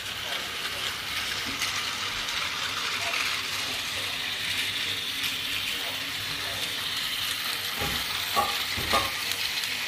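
Battery-powered TOMY toy train running on plastic track: a steady whirring rattle of its small motor and gears, with a few knocks about eight to nine seconds in as the wagons pass close.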